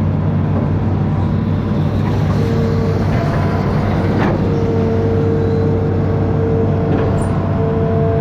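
Amphibious excavator's diesel engine running steadily, with a higher humming tone that drops out and comes back several times and a sharp clank about four seconds in.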